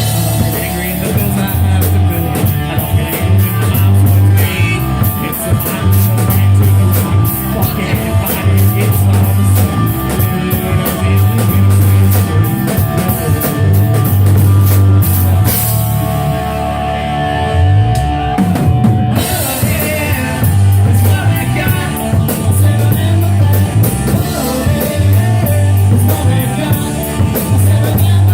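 Live rock band playing, with a drum kit and a pulsing bass line driving the song. About two-thirds of the way through, the bass drops out for a few seconds, then the full groove comes back in.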